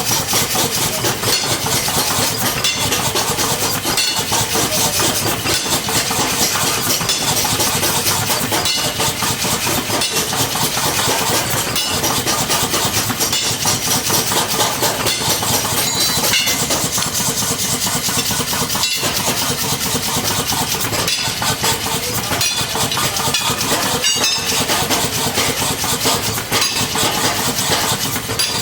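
Engine-driven mechanical power hammer running steadily, with rapid, even knocking of its strikes over the engine's noise.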